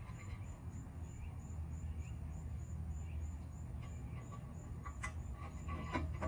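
Insect chirping at a steady, even rhythm of about two to three high pulses a second over a low steady hum, with a couple of sharp clicks near the end.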